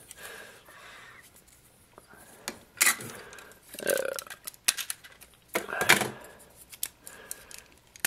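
Hard plastic Transformers Seacons toy figures clicking and clacking as they are handled, with scattered sharp clacks and a denser rattle about four seconds in.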